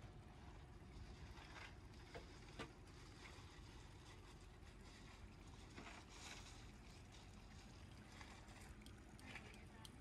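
Near silence: faint, steady outdoor background with a low rumble and a few soft, scattered clicks.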